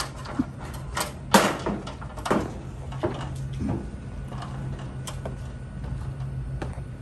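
Aluminum ladder clanking and scraping as it is carried up a shingle roof: a handful of sharp metallic knocks in the first four seconds, the loudest about a second and a half in, over a steady low hum.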